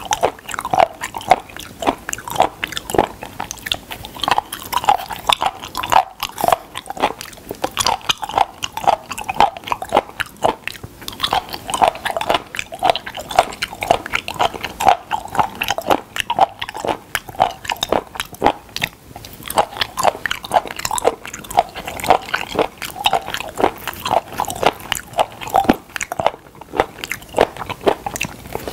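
Close-miked chewing of raw sliced spoon worm (gaebul): a steady run of crisp chewing clicks, several a second.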